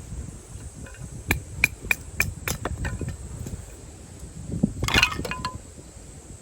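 A series of sharp light clinks, about three a second for a couple of seconds, then a brief clatter about five seconds in.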